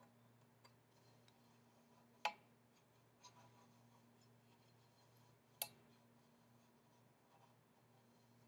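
Near silence with a greased trumpet tuning slide being worked in and out of its tubes: soft brass rubbing and a few faint ticks, with two sharp metal clicks, a little over two seconds in and again about three seconds later, over a faint steady hum.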